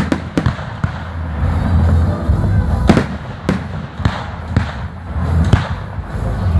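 Fireworks display: aerial shells bursting in an uneven rapid series of about a dozen sharp bangs, the loudest about three seconds in, over a low rumble with music playing underneath.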